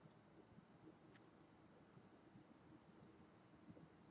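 Near silence: faint room tone with soft, irregular high-pitched ticks scattered through it.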